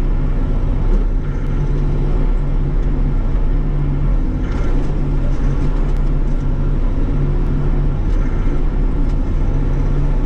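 Bobcat E42 mini excavator's diesel engine running steadily, heard from inside the cab, while the boom and bucket dig at a stump. A few faint clicks and knocks sound over the engine.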